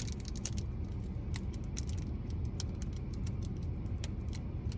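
Foil booster-pack wrapper crinkling and crackling in quick irregular bursts as it is worked and torn open, over a steady low rumble.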